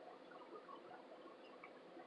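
Faint, scattered small clicks and squeaks of a mouth working a mouthful of dry cornstarch, over a quiet steady hum.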